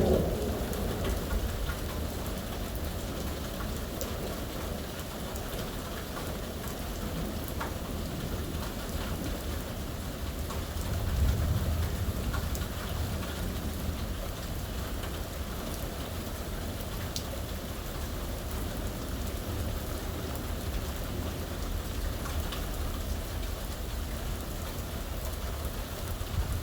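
Steady rain from a thunderstorm pattering on surfaces, with low rumbles of thunder at the start and again about eleven seconds in.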